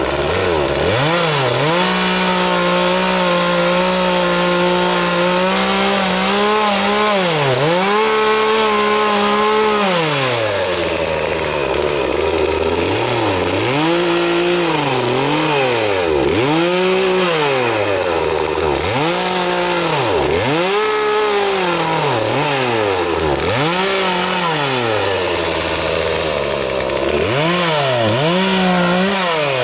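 Gas chainsaw cutting pine limbs. It is held at high revs for a few seconds at a time at first, then revved up and dropped back over and over in short bursts, about one every second and a half.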